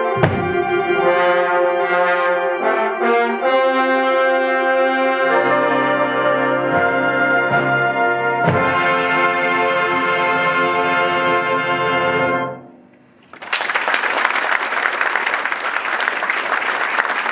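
Fanfare band of brass, saxophones and percussion holding its closing chords, with a low-register entry about five seconds in; the final chord cuts off about twelve and a half seconds in, and after a brief pause the audience breaks into applause.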